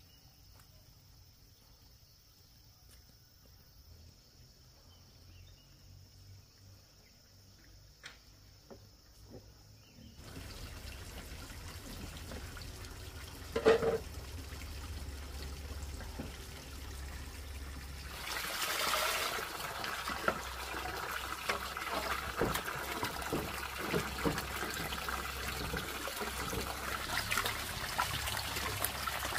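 Running, trickling water that builds up over the second half, full of small splashes and clicks, after a quiet stretch with a faint steady high tone. A single loud knock comes about halfway through.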